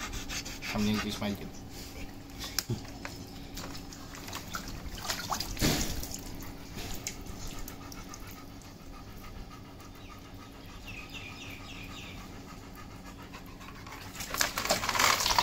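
Black Labrador retriever panting rapidly with its mouth open, wet from its bath while standing in a tub of water. Near the end, a louder stretch of noise.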